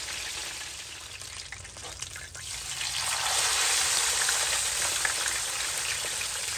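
Hot oil sizzling steadily in a wide open frying pan as chicken wings and then crinkle-cut fries deep-fry, stirred with a wire-mesh skimmer. The sizzle grows louder about three seconds in.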